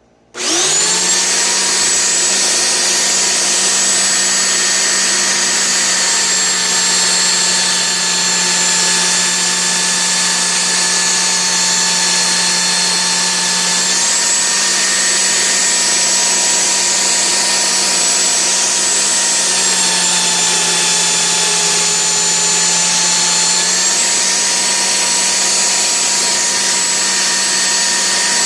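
Small electric belt sander switched on, coming up to speed within a moment, then running steadily at a fixed pitch while a chainsaw bar's rail face is ground square on the belt, to cure the bar binding in the cut. Its pitch drops slightly for a few seconds about two-thirds of the way through.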